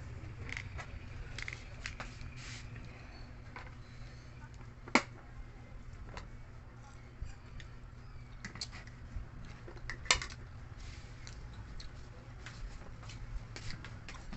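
Mukbang eating sounds from spicy street food: chewing with many light scattered clicks and two sharper knocks, about five and ten seconds in, over a low steady hum.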